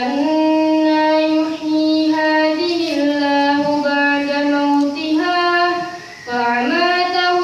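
A boy reciting the Qur'an in a melodic chanted style, drawing out long held notes. He breaks off briefly about six seconds in, then comes back on a rising note.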